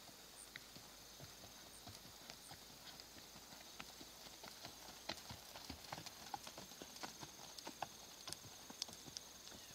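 Hoofbeats of a palomino Paint-bred gelding on sand arena footing: faint, irregular soft thuds and clicks that grow louder and more frequent about halfway through as the horse passes close. A faint steady insect trill runs high in the background.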